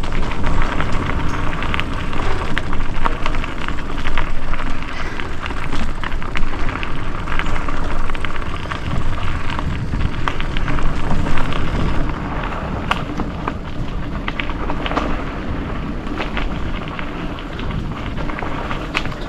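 Mountain bike riding down a dirt trail: wind rumbles on the microphone while the tyres crunch over the ground and the bike rattles with frequent sharp knocks. It gets quieter about twelve seconds in.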